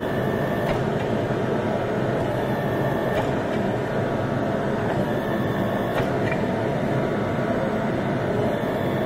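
Electric motor and hydraulic pump of an 8-ton log splitter converted into a forging press, running with a steady drone while the press works a hot steel bar, with a few faint ticks.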